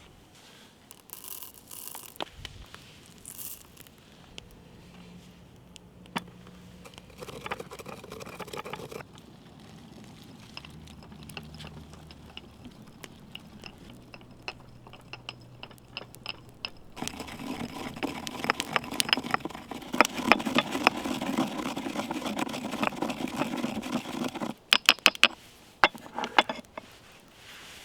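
Scraping, crunching and sharp snapping as a campfire is built: dry sticks and kindling being handled and broken. The sounds grow denser and louder after about halfway, and a few loud cracks come near the end.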